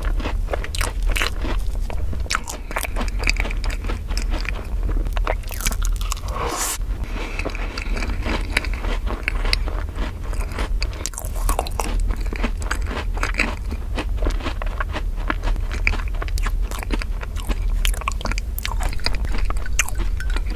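Close-miked chewing of strawberry crepe cake with whipped cream and a piece of macaron: soft crunches and many small irregular mouth clicks, over a steady low hum.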